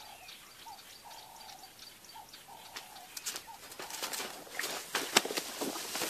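A dove cooing in short repeated notes for the first half, then a growing run of cracking and rustling brush as an elephant pushes through the bush, with one sharp crack about five seconds in.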